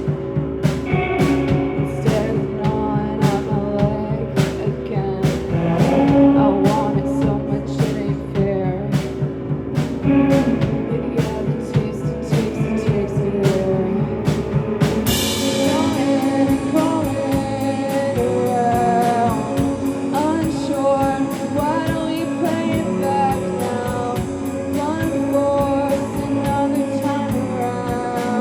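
A rock band playing live: drum kit, guitar and singing. About halfway through, cymbals come in and the playing fills out.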